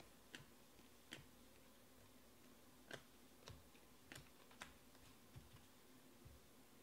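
Glossy Panini Prizm trading cards being flipped through and slid against one another in the hands: a handful of faint, irregular clicks and snaps over near-silent room tone.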